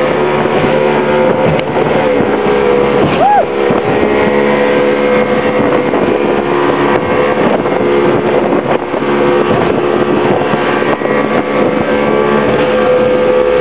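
Motorboat engine running steadily under way: a constant droning hum with a dense rush of wind noise over it.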